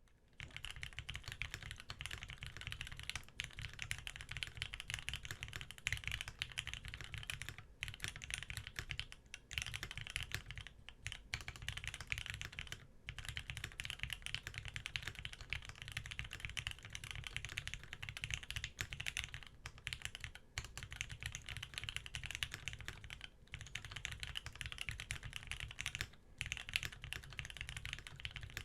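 Fast, continuous typing on a custom E8.5 top-mount mechanical keyboard with lubed Gateron Ink switches, an aluminium plate and GMK keycaps: a dense stream of keystrokes broken by a few brief pauses.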